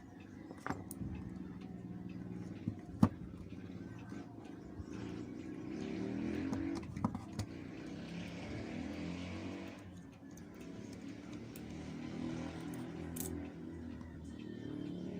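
Motor vehicle engine sound in the background, rising and falling in pitch, with scattered sharp small clicks and taps from handling small parts; the loudest click comes about three seconds in.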